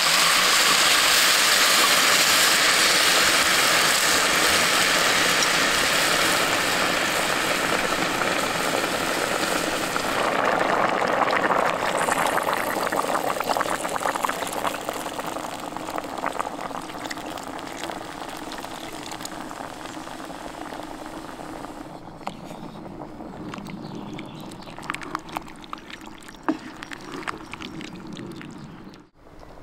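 Red wine poured into a hot Dutch oven of fried beef and onions, sizzling loudly and slowly dying down. About ten seconds in, stock is poured in and the pot bubbles, settling to a quieter simmer with a few small knocks near the end.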